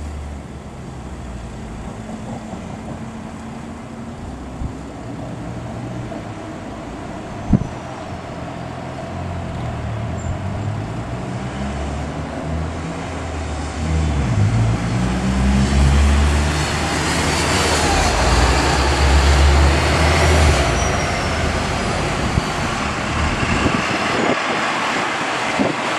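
A low, uneven rumble that swells louder about halfway through, joined by a rising rushing hiss, with a single sharp click about seven seconds in.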